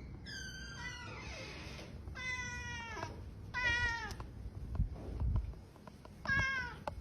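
A domestic cat meowing four times, with pauses between, several of the meows falling in pitch.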